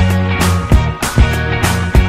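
Background pop music, instrumental with no vocals: a steady drum beat, about two strokes a second, over bass and guitar.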